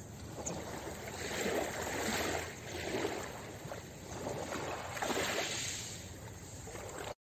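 Small ocean waves washing in and out over a pebble beach, in several rising and falling swells of wash. The sound drops out completely for a moment at the very end.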